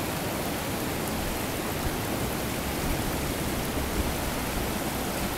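Brown floodwater rushing over a low dam and through rapids in a steady rush of water noise, with an uneven low rumble underneath.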